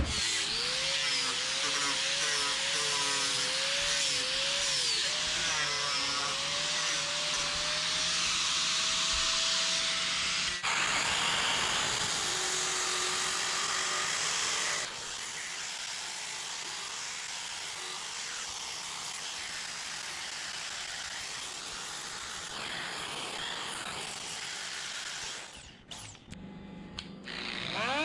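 Handheld electric power tools grinding and sanding carved wood, a steady motor whine whose pitch wavers in the first part, heard in several short clips joined by sudden cuts.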